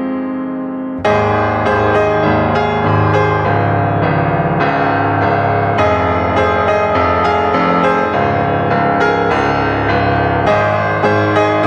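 Background piano music: a held chord fades, then about a second in a new phrase begins with notes struck at a gentle, regular pace.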